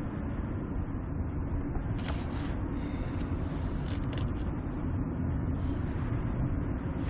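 A car driving, with a steady low rumble of engine and road noise and a few brief hissing swells about two to four seconds in.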